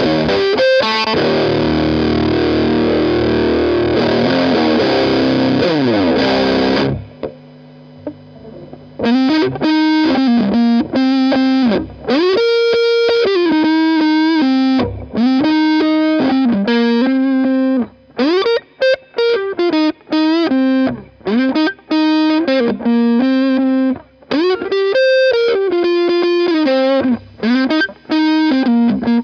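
Electric guitar through a Walrus Audio Iron Horse LM308 distortion pedal. Heavy distorted chords ring for about seven seconds and fade out. Then a single-note riff with string bends plays in short, choppy phrases.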